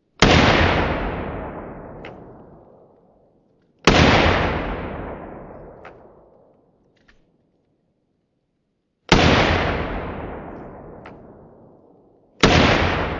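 Mud-covered rifle fired four single shots, a few seconds apart, each followed by a long echo that fades over about three seconds. The rifle fires without jamming despite the mud.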